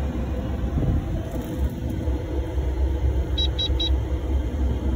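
Three quick electronic beeps from a Kubota excavator's instrument panel a little over three seconds in, as the ignition key is switched on, over a steady low rumble.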